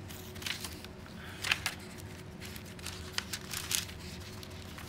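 Paper rustling and page flaps as the thick, aged-paper pages of a handmade junk journal are handled and turned, in several short crisp bursts. A faint steady hum runs underneath.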